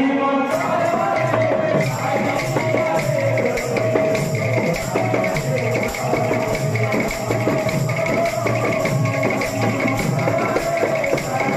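Kirtan drumming: two mridanga barrel drums beat a steady, driving rhythm, with khanjani jingle drums shaking along and a held melodic note over it for the first several seconds.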